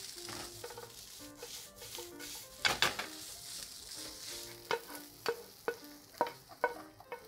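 Caramelised sliced onions sizzling in a frying pan while a wooden spatula stirs and scrapes through them. From about the middle the sizzle fades and sharp knocks and scrapes of the wooden spatula against the pan follow as the onions are scraped out into a bowl.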